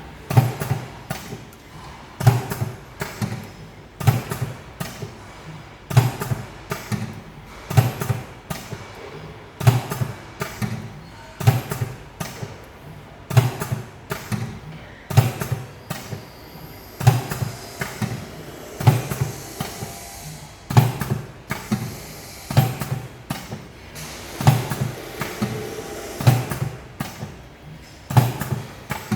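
Automatic triangle-cutting machine running through its cycle: a sharp clack with a low thump about every two seconds, each followed by a few lighter clicks, in a steady rhythm.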